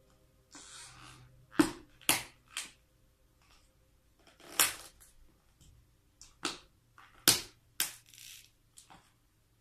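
Toy cars cracking and snapping under a high heel, about eight sharp cracks at irregular intervals, with some brief scraping between them.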